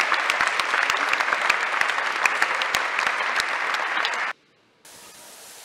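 Audience applauding: dense, fast hand-clapping that cuts off suddenly about four seconds in, followed by a faint steady hiss.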